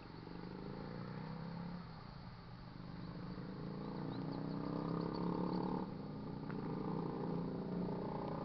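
Locomotive air horn of an approaching BNSF freight train, a multi-note chord sounded in long blasts broken by short gaps about two seconds and six seconds in, getting louder as the train nears the crossing.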